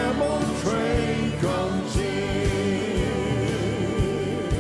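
Gospel vocal group singing in harmony with a live band, a low drum thump about once a second.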